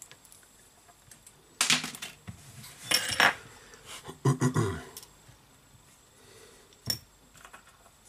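Small metal repair tools clinking and tapping against hard parts on a work surface in a few short clattering bursts, with one sharp click near the end.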